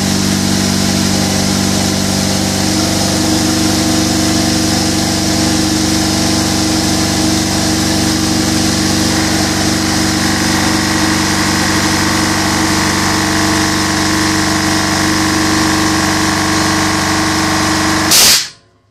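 Air compressor built from an FSO 1.6 car engine, driven by a 7.5 kW electric motor at about 1450 rpm, running steadily. A brief loud burst of noise comes near the end, then the sound cuts off abruptly.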